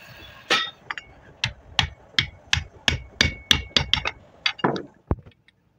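Hammer blows on a steel drift, driving a white bush into the ball-joint housing of a Wagon R front lower control arm. About a dozen sharp metallic strikes come at roughly three a second, some with a brief ring, and they stop about five seconds in.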